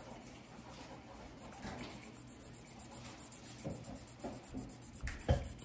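Crayola Supertips felt-tip marker scratching faintly on paper in short colouring strokes, with a louder thump near the end.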